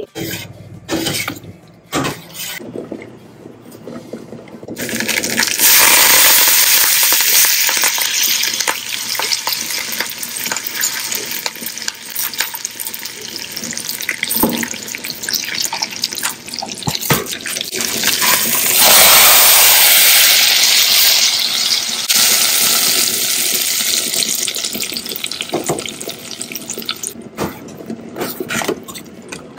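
A few clinks of a ladle stirring in a steel pot, then a tempering of dried red chillies, curry leaves and spices sizzling in hot oil in a small frying pan. It is a steady loud hiss from about five seconds in, loudest a little before the twentieth second.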